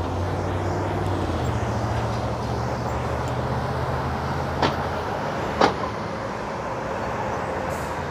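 Traffic at a city intersection: a city bus's engine hums low as it turns through, with cars passing. About halfway through come two sharp knocks, about a second apart.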